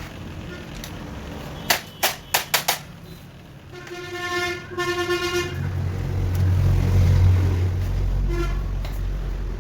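A quick run of sharp clicks, then a vehicle horn honking twice, followed by the low rumble of a motor vehicle passing.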